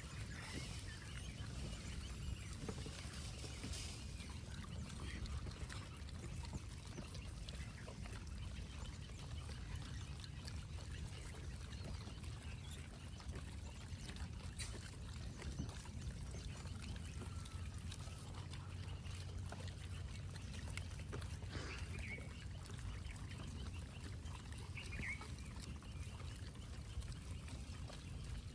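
Steady low outdoor rumble, with a few faint, short, high chirps about three-quarters of the way through.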